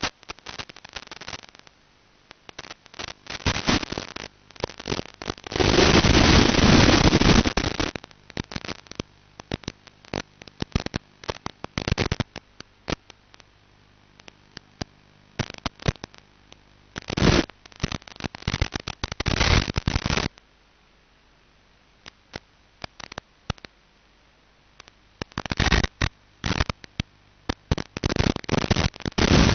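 Crackling radio static and hiss from an analog FPV video link's receiver audio, coming and going in irregular bursts as the signal breaks up. The loudest stretch of steady hiss comes about a quarter of the way in, and there is a long quiet gap past the two-thirds mark.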